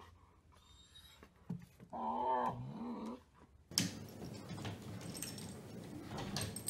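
A German shepherd gives one wavering, whine-like vocal call about two seconds in, lasting about a second. After a sudden change a few seconds in, a rustling noise with scattered clicks and knocks follows.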